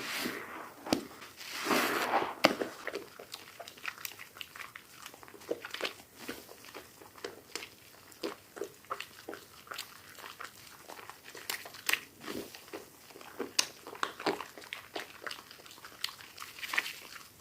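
Soap being cut and crushed: a dense, irregular stream of sharp crunches and crackles, with a longer crunching rasp about two seconds in.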